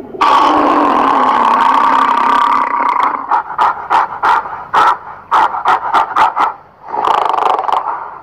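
Gorilla calling loudly: one long call of about two and a half seconds, then a string of short sharp sounds at roughly two a second, then another long call starting near the end.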